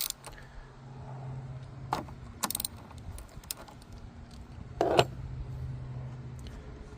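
Scattered sharp metallic clicks and clinks of a wrench working the 10mm nut on a car's negative battery cable terminal, the loudest about five seconds in, over a low steady hum.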